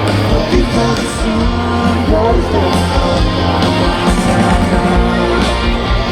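Rock band playing live and loud, with a singer over drums, bass and guitars.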